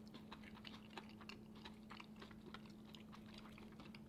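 Faint, close chewing of gimbap, seaweed-wrapped rice rolls: soft, irregular small crunches and clicks as the rolls are bitten and chewed.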